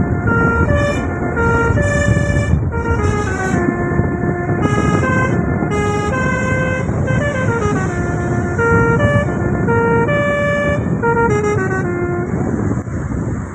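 Tour bus 'telolet' basuri musical air horn playing a tune: a string of held notes stepping up and down, with a gliding slide down about halfway through. It plays over a steady low noise.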